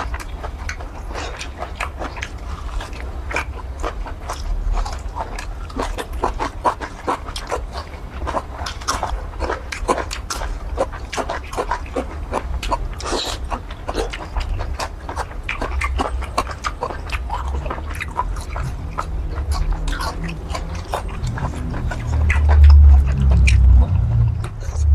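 Close-miked chewing of tender squid in curry: a dense run of wet, irregular mouth clicks, several a second. A louder low sound comes in near the end.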